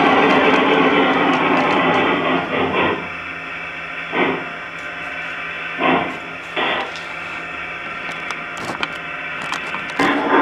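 Large-scale garden model train cars rolling on the track with a steady clatter. The clatter stops abruptly about three seconds in, as the train runs into other trains on a switch left set the wrong way. A few separate knocks follow.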